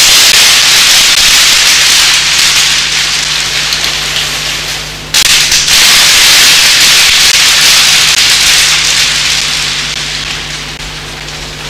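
A loud, even hiss like static that breaks off for an instant about five seconds in, starts again abruptly, then slowly fades toward the end.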